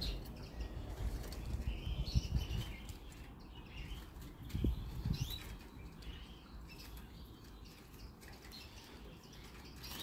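A juvenile European goldfinch held in the hand, with soft rustling and wing flutters as it stirs in the grip, and a few faint chirps. The flutters and thumps come mostly in the first half and die down toward the end.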